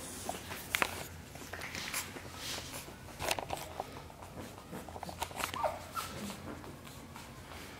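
Pug puppies playing on a tile floor: scattered light clicks and scuffs of paws and claws on the tiles, with a short falling whimper a little past halfway.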